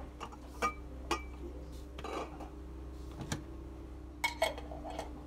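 Kitchenware being handled on a tiled shelf: about five sharp clinks and knocks, some with a short ring, as a lidded ceramic pot and a plastic chopper are picked up and moved. A steady low hum runs underneath.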